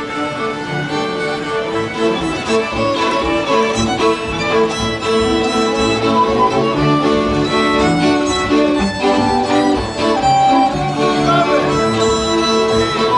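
Górale highland folk string band playing a tune: several fiddles over a bowed bass.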